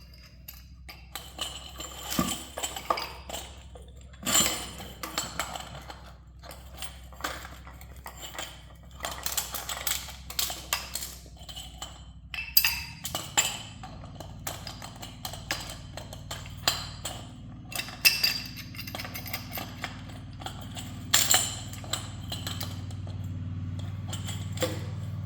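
Irregular metallic clinks and knocks of tools and metal fittings being worked to clamp a part down. A steady low hum comes in about halfway through and grows louder toward the end.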